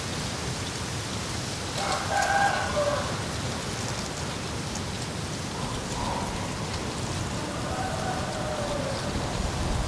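Steady rain falling, a continuous hiss with fine pattering. A rooster crows twice through it, about two seconds in and again near the end, the second crow trailing down in pitch.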